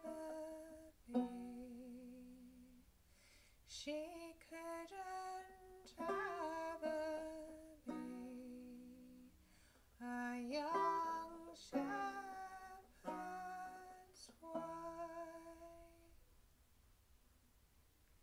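A woman singing a folk song, accompanying herself on a fingerpicked banjo, in phrases of a few seconds each. Near the end the voice stops and the last banjo notes die away.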